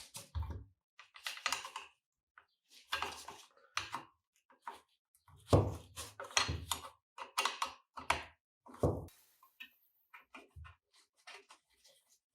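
Irregular knocks, clinks and scrapes of metal tools and heavy cast-iron parts of a sugar cane mill being handled on a workbench. The clatter is busiest in the middle, with lighter scattered ticks near the end.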